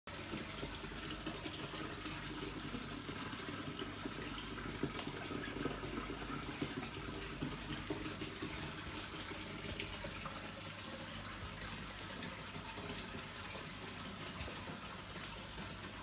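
Steady splashing and trickling of a paludarium's waterfall pouring into its water section.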